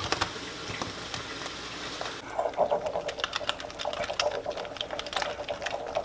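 A utensil stirring a thick mayonnaise-based sauce in a bowl: rapid, irregular clicking and scraping that thickens about two seconds in.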